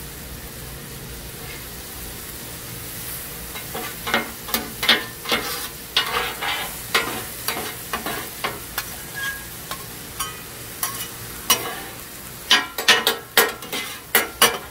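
Metal spatula scraping across a hot steel flat-top griddle to clean the surface, in a run of quick strokes and clacks that starts about four seconds in and comes thick and fast near the end, over a steady sizzle of food on the griddle.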